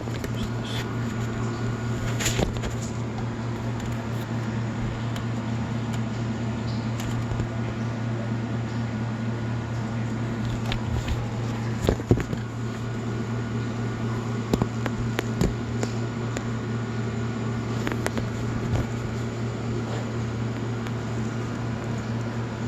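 Marathon electric motor on a reverse osmosis system's rotary vane pump giving a steady low electrical hum, with a few faint clicks. This hum is the fault the owner cannot trace: the motor just hums, even with a new pump fitted and the motor checked to spin freely.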